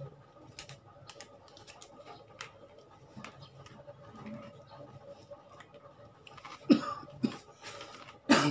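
Light clicks and taps of plastic toy cake pieces and a toy knife being handled by a small child. Near the end come a few short, loud sounds that are much louder than the clicks.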